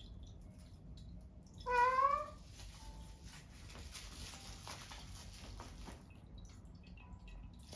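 A pet cat's weird cry while playing with a toy: one short call that rises in pitch, about two seconds in. After it come faint rustling and small taps.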